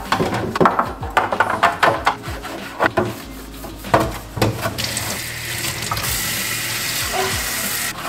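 Clear plastic refrigerator organizer bins knocking and clattering against each other in a stainless steel sink. About five seconds in the kitchen faucet comes on and water runs steadily over a bin.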